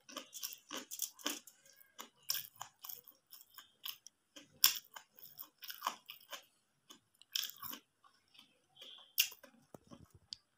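Close-miked eating sounds: chewing with irregular short wet mouth clicks and smacks, two louder ones about halfway through and near the end.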